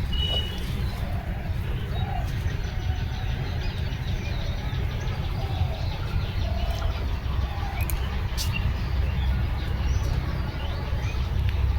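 Steady low rumble with faint bird calls, among them soft cooing.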